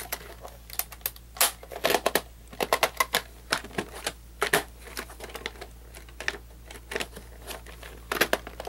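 Plastic clicks and taps from a VHS cassette shell being handled and its two halves fitted back together: many short, irregular clicks, with a quick cluster near the end.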